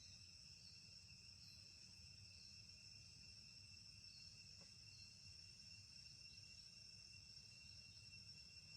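Near silence: faint, steady high-pitched insect trilling, with a short chirp repeating about once a second in the first half, over a low background rumble.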